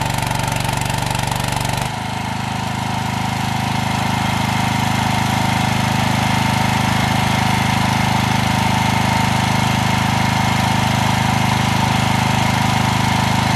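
Gasoline engine of a 23 HP portable welding generator running steadily. Its sound shifts abruptly about two seconds in, then holds steady.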